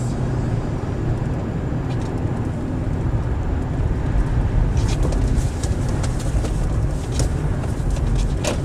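Car driving on a snowy road heard from inside the cabin: a steady low rumble of engine and tyre noise, with a few brief clicks in the second half.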